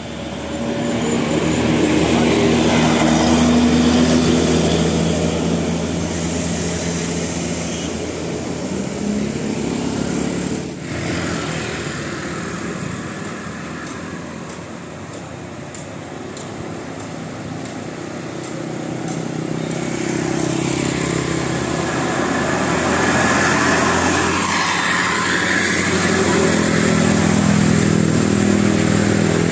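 Road traffic passing: vehicle engines running, swelling as vehicles come close, with one loud pass a few seconds in and another building near the end.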